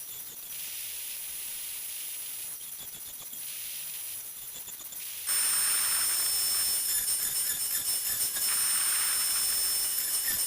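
High-speed router motor running with a high whine and hiss as it machines an oval mortise in wood. It gets suddenly louder about five seconds in and stays so.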